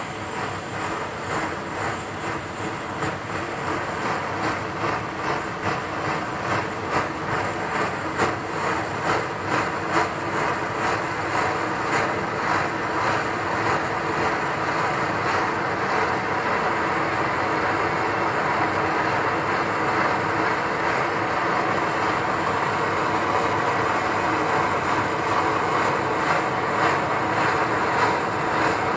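BRS-12A multi-fuel camping stove burner running as it comes up to temperature after priming, the fuel now vaporising into a blue flame. For the first dozen seconds the noise surges and pulses unevenly, then it settles into a steady rushing that slowly grows louder.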